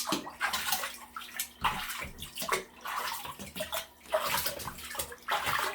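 Water splashing and sloshing in a small tub in irregular bursts, a puppy standing in a shallow bath.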